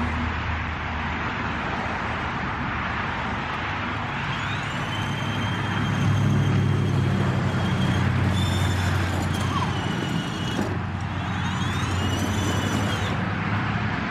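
Children's battery-powered ride-on toy car driving over wet concrete, its electric motors and plastic wheels making a steady rumbling noise. High squeaky tones come and go in the second half.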